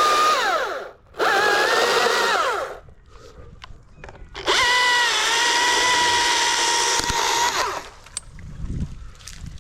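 Husqvarna chainsaw run at full throttle in three bursts, the longest about three seconds, each ending with the pitch falling away as the throttle is let off.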